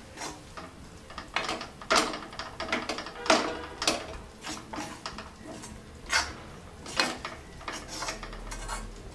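Steel spoon stirring and scraping gram flour roasting in ghee around a metal kadai, with irregular scrapes and knocks against the pan about once a second.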